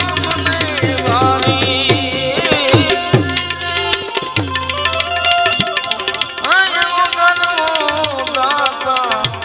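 Gujarati folk devotional music: a man singing a wavering, ornamented melody over a harmonium, with hand-drum and fast, sharp percussion strokes.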